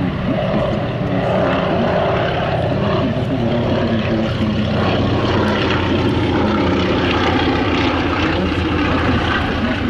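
Propeller engines of an Antonov An-2 biplane, with its 1000 hp nine-cylinder radial engine, and three Aero AT-3 light aircraft, running steadily as the formation flies past.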